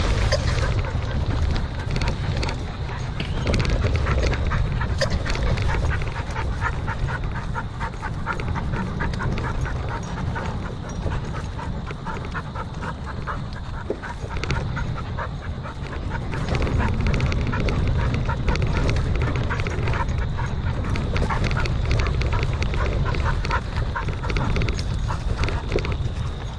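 Mountain bike rolling over a bumpy dirt trail: a steady low rumble on the camera microphone with a constant stream of clicks and rattles from tyres and bike. A dog running alongside is panting close by.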